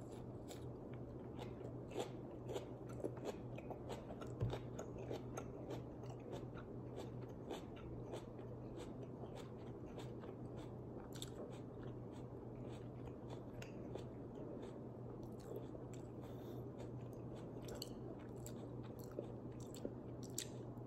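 A person chewing a whole raw habanero pepper close to the microphone: faint, irregular crunches and wet mouth clicks, a few sharper ones in the first few seconds. A steady low hum runs underneath.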